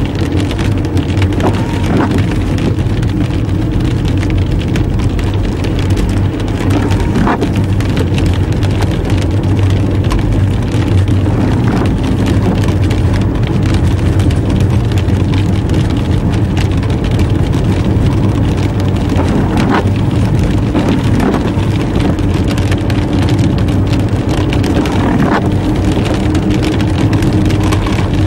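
A car's engine and tyres running on a wet road, heard from inside the car, with a steady low hum and road noise. Rain is falling on the car, and a few short higher-pitched sounds come now and then.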